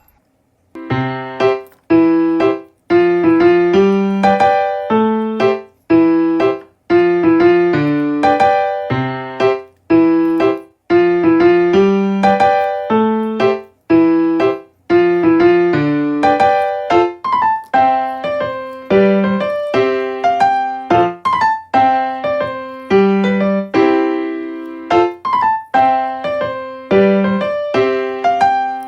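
Background music: a simple piano melody played in repeating phrases.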